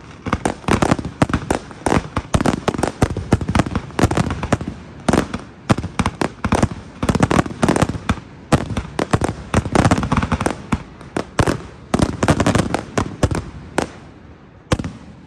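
Aerial fireworks display: a dense barrage of sharp bangs from bursting shells, several a second, thinning out in the last second or so.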